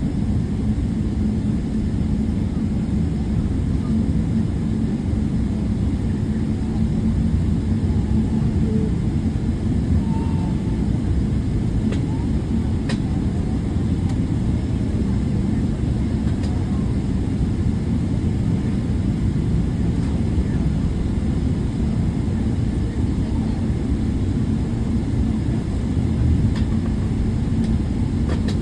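Airliner cabin noise before takeoff: a steady low rumble from the engines and air system, with a constant hum and a faint click about thirteen seconds in.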